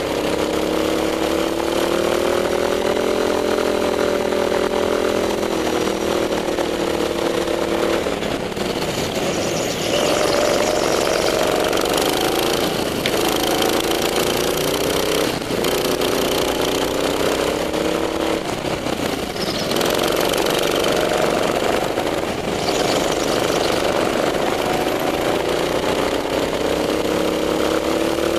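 Go-kart engine heard from on board the kart, its pitch climbing as it accelerates down each straight and dropping off sharply as the driver lifts for the corners, four times.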